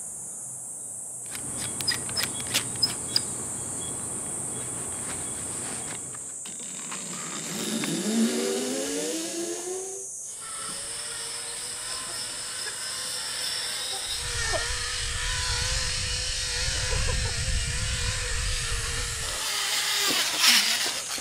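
Zipline trolley pulley running along a steel cable: a rising whine as it picks up speed, then a steady hum with a rumble, and a clatter near the end as the rider arrives. Insects buzz steadily throughout, and there are a few sharp clicks about two seconds in.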